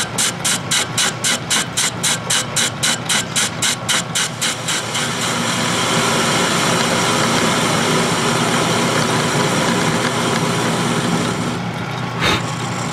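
Metal lathe facing the crooked bandsaw-cut end of a steel part with a carbide insert: the cut pulses about three to four times a second while the tool is still meeting the uneven face only part of each turn, then settles into a steady, continuous cut about five seconds in as the face cleans up. Near the end the cut eases off and there is a single knock.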